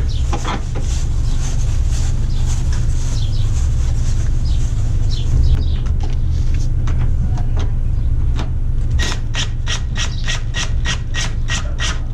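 Metal clinks and knocks as a new upper control arm is worked up into its mounts, then from about nine seconds in a ratchet clicking evenly, about four clicks a second, as the nut is run down on the control arm's bolt. A steady low rumble lies underneath.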